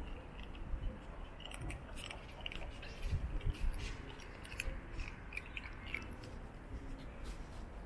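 Black kittens crunching dry kibble: a quick, irregular run of small crisp crunches. There are a few low thumps about three seconds in.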